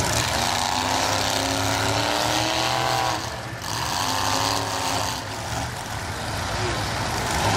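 Engine of a lifted mud truck on tractor tyres revving up twice under load as it climbs a mud mound, rising in pitch each time, with a short dip between the pulls. A low steady engine drone runs underneath.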